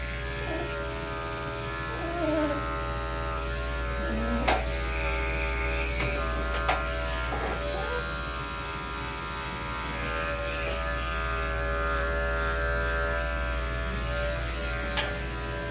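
Corded electric dog grooming clippers buzzing steadily as they are run over a dog's coat, with a few light clicks along the way.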